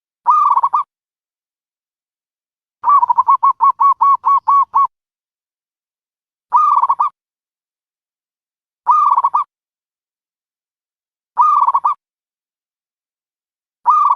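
A dove calling: short pulsed coos repeated about every two and a half seconds, and, a few seconds in, one longer run of about ten quick coo notes over two seconds.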